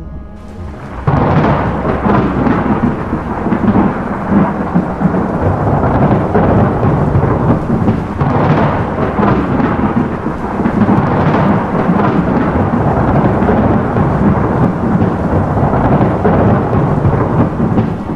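Thunderstorm: a sudden loud thunderclap about a second in, then continuous rumbling thunder with rain, swelling several times.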